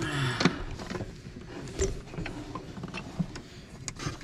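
Scattered light clicks and knocks of metal parts handled by hand as a bolt and spacer are fitted through a fuel filter mount, with the loudest clink about half a second in.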